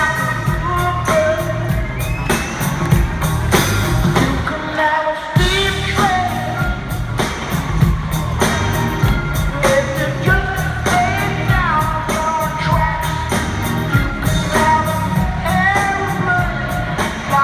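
Live rock band playing with a lead vocal over a steady drum beat, guitars and keyboards, heard from the audience in an arena.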